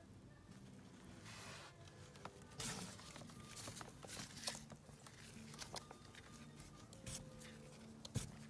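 Faint scattered clicks and light knocks from hand work on a cylinder head's valve springs and keepers, over a low steady hum.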